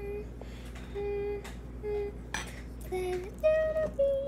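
A girl humming a few short notes, the later ones higher and louder, while slime is worked in a bowl. A few short clicks and knocks sound against the bowl between the notes.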